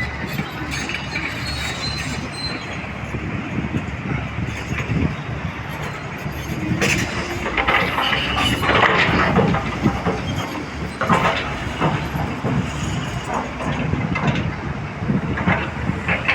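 Heavy earthmoving machinery at work: a steady engine drone under repeated metallic clanks and squeals, busiest in the middle.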